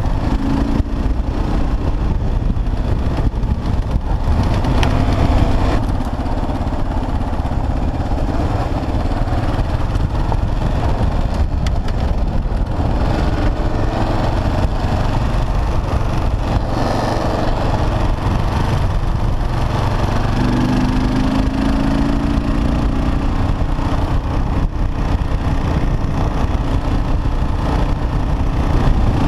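Kawasaki KLR650's single-cylinder four-stroke engine running steadily under way, with heavy wind rumble on the helmet-mounted microphone.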